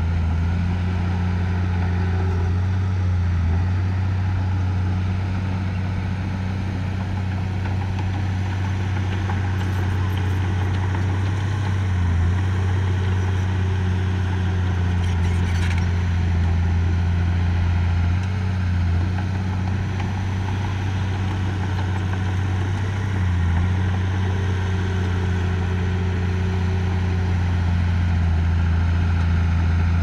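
Diesel engine of heavy earthmoving equipment running steadily with a low, even hum that dips briefly a few times.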